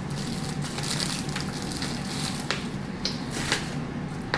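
Crunching and crackling close by with a few sharp clicks, as a hardened Kool-Aid and corn syrup candy is bitten and chewed.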